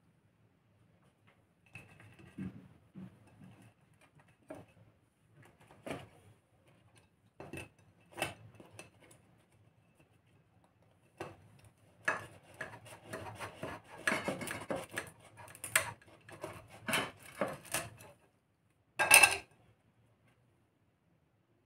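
Kitchen knife knocking and scraping on a ceramic plate while cutting through baked pastries, in scattered taps at first, then a denser run of scraping and clinks in the second half, with one loud clatter near the end.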